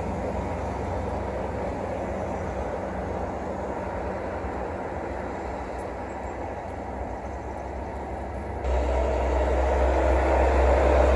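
Steady low outdoor rumble with no clear pitch, which jumps suddenly louder about nine seconds in.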